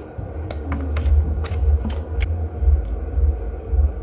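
Low, pulsing rumble with several light clicks and taps as a hand handles the phone and the USB current meter.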